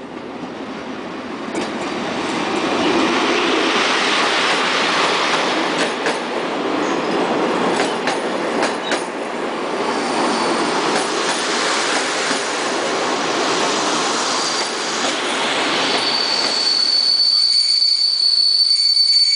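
Passenger coaches rolling past close by, with scattered clicks of the wheels over rail joints. About fifteen seconds in, a high steady squeal of the wheels and brakes sets in and grows louder as the train slows into the station.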